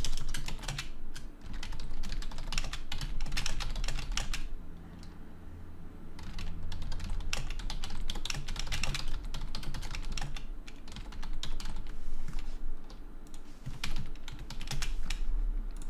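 Fast typing on a computer keyboard, runs of keystrokes with a short pause about a third of the way in, over a low steady hum.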